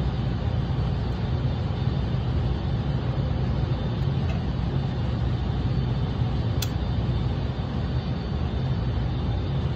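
Steady low rumble of an indoor shooting range's ventilation system, with a couple of faint clicks.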